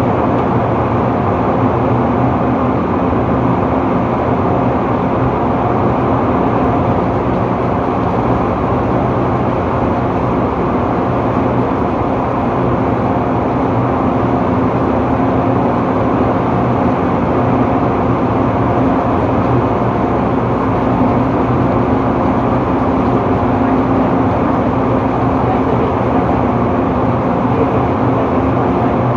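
Drilling-rig floor machinery running steadily: a loud, constant mechanical drone with several steady humming tones beneath it.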